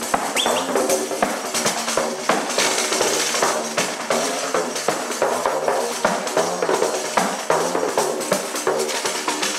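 Sicilian folk ensemble playing live: a tambourine beats a quick, steady rhythm over pitched instruments.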